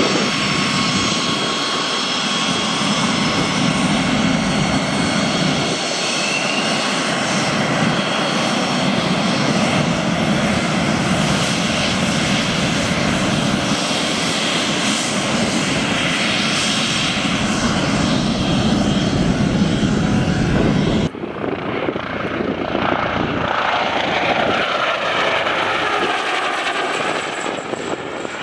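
JAS 39 Gripen's Volvo RM12 turbofan running loud and steady as the fighter taxis past, with a high turbine whine over the jet noise. About 21 seconds in it cuts abruptly to a helicopter flying past, its rotor and engine sound rising and falling in pitch.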